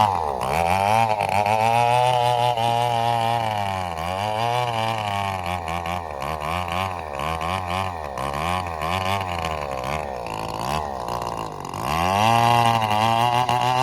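Komatsu D68ESS crawler bulldozer's diesel engine working under load, its revs repeatedly rising and falling. It bogs down lowest about four seconds in and again around eleven seconds before picking up again.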